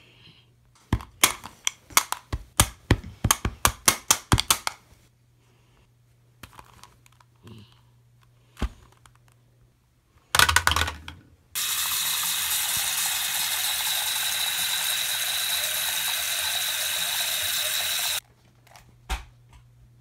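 Rubik's cube layers being twisted quickly, a rapid run of plastic clicks for about four seconds. Later a short clatter, then a tap running steadily into a bathroom sink for about six seconds before it is shut off suddenly.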